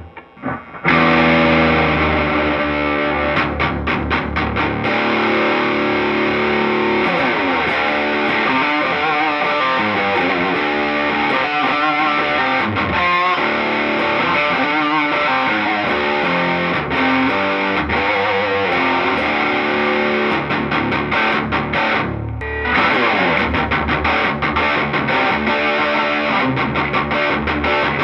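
2019 Gibson Les Paul Classic electric guitar played through an amplifier, a continuous stretch of riffing with a short break just after the start and another about 22 seconds in.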